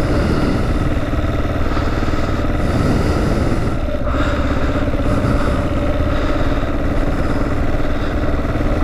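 2009 Kawasaki KLR650's single-cylinder four-stroke engine running steadily as the motorcycle rides along.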